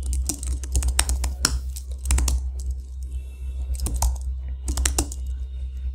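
Typing on a computer keyboard: runs of quick keystrokes with short pauses between them, entering terminal commands, over a steady low hum.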